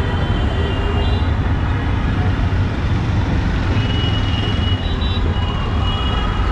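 Busy street traffic: a steady low engine rumble of idling and passing motor vehicles, among them three-wheeled CNG auto-rickshaws, with a few short high tones from about four seconds in.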